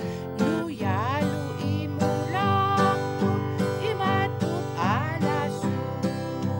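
Acoustic guitar strummed steadily, accompanying a woman singing a song with held, sliding notes.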